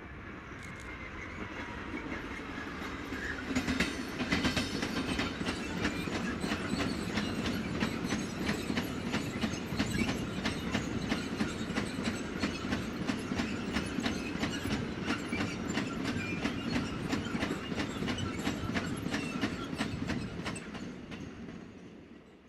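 A train passing close by, its wheels clicking over the rail joints in a fast, steady rhythm over a rumble. It builds up over the first few seconds and fades away near the end.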